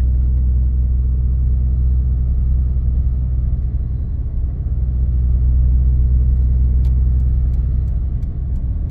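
Steady low drone of a vehicle's engine and road noise, heard from inside the cab while driving at road speed. A few light clicks come in near the end.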